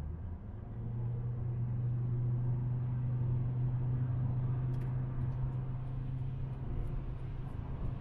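Car driving on the road: a steady drone of engine and road noise, its low hum stepping up in pitch about a second in as the car speeds up, then holding steady. A few faint ticks come in the second half.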